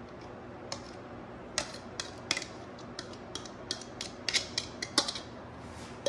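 A metal spoon clinking against a ceramic dish while scooping out egg-cup toppings: a run of light, irregular clinks, about two or three a second.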